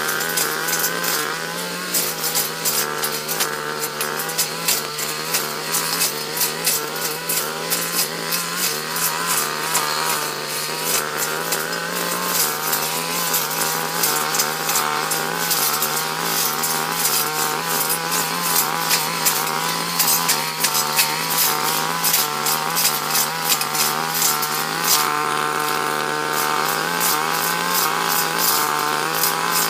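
Backpack brush cutter engine running steadily at working speed while the cutting head mows weeds, with frequent sharp ticks throughout.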